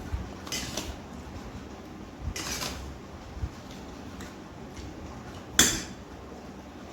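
People eating from plates: three short scraping clinks on the dishes, the loudest near the end.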